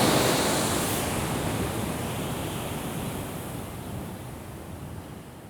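Ocean surf washing on a beach, a steady rush of waves that fades gradually away.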